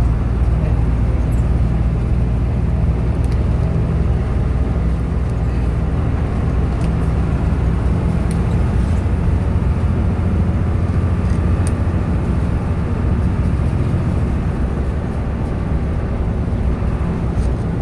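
Front-engined coach's diesel engine running steadily, heard from inside the cabin with road noise, as the bus cruises at a gentle 40-60 km/h.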